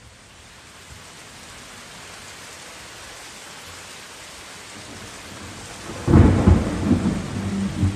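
Steady rain hiss swelling slowly, then a sudden loud low rumble of thunder about six seconds in. The song's music starts under the thunder near the end.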